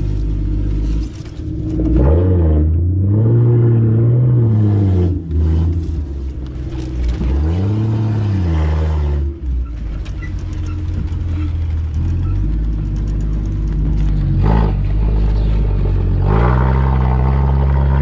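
Jeep CJ5's engine revving up and easing off twice as it crawls through a rocky creek, then running steadier and climbing again near the end, heard from inside the cab.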